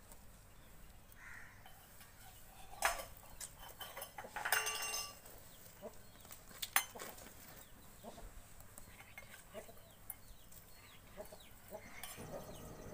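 Chickens clucking and cheeping in the yard, with a few sharp knocks of dry firewood being laid on a small fire and a brief metallic clatter about four and a half seconds in.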